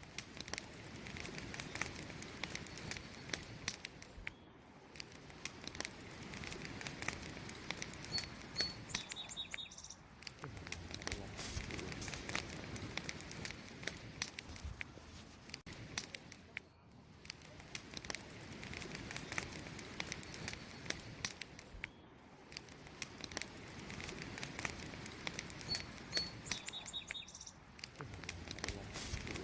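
Wood fire burning, crackling and popping with dense irregular snaps over a low rushing bed. A short high chirp sounds twice.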